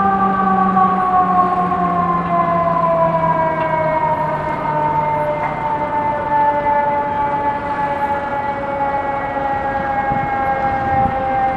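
Fire engine siren on FDNY Engine 10, winding down in one long, slow fall in pitch.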